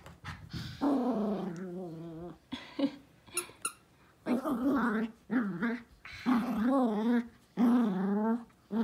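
Toy poodle growling in play: a run of about six drawn-out growls, each with a wavering pitch.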